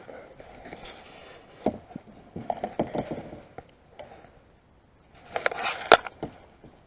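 Scattered knocks and clicks from fishing tackle handled in a kayak: a spinning rod and reel and a lure against the hull. Near the end comes a louder rustling burst with a sharp click.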